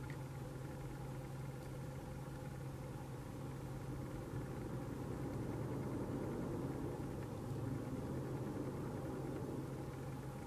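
A steady low hum over a noisy rumble, swelling a little in the middle.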